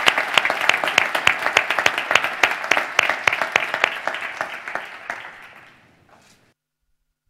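Audience applauding with dense clapping, which thins out and fades from about four and a half seconds in and is cut to silence a couple of seconds later.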